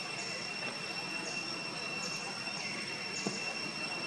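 Outdoor insect drone: a steady high-pitched hum at two pitches, with a short falling chirp repeating roughly every three-quarters of a second, and a single soft knock about three seconds in.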